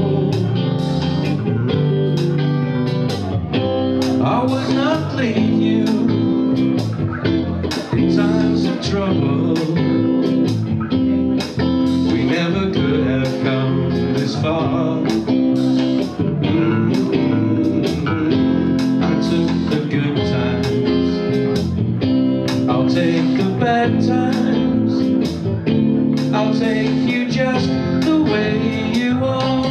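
A man singing live into a microphone over amplified electric guitar and bass guitar, played with a steady beat of plucked notes.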